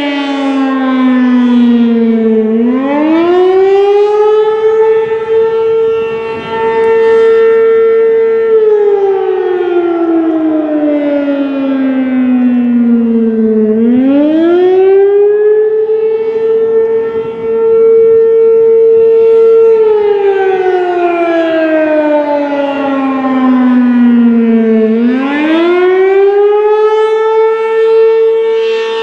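American Signal RM-127 outdoor warning siren sounding its test wail. The pitch climbs over about two seconds, holds steady for about six, then slides slowly down over about five seconds, and the cycle runs about three times.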